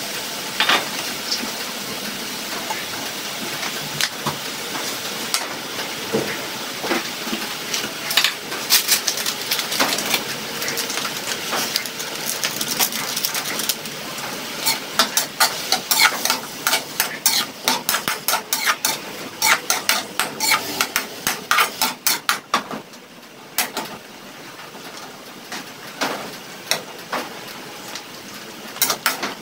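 Ground pork sizzling in a metal wok, with a metal spatula repeatedly scraping and clicking against the pan as the meat is stirred and broken up. The clicks come in quick runs, thickest through the middle and again near the end.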